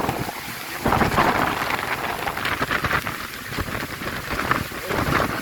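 Heavy rain in strong, gusting wind, a dense rushing noise that swells and eases in surges.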